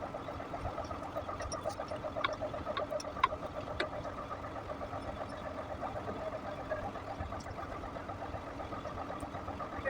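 Truck diesel engine idling with an even pulse, with a few light metallic clicks in the first few seconds.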